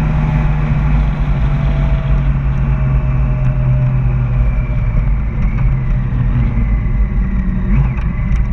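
Motor vehicle driving at steady speed, a continuous low engine hum under road and wind rumble.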